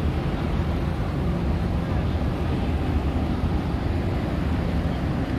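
Steady, low rumble of a large crowd walking and milling about outdoors, even throughout, with no single voice standing out.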